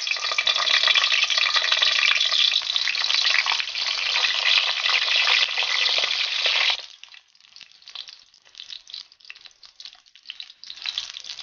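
Eggplant slices frying in hot oil in a wok: a dense, steady sizzle. About two-thirds of the way through it drops suddenly to a much quieter, sparse crackle, which grows louder again near the end.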